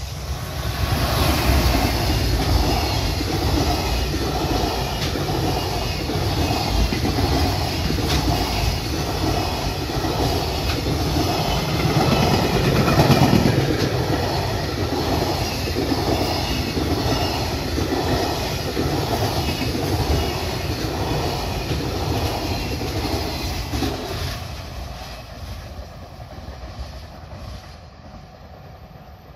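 A freight train hauled by a JR Freight EF210 electric locomotive passing close by, its long string of container flatcars clattering over the rail joints in a steady rhythmic clickety-clack, loudest about halfway through. The sound fades away over the last few seconds as the train passes.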